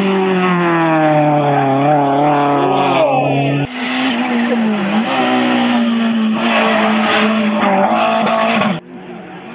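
Rally car engines running hard on a timed stage, pitch falling early on. About a third of the way in the sound cuts abruptly to another engine, and near the end it drops off suddenly.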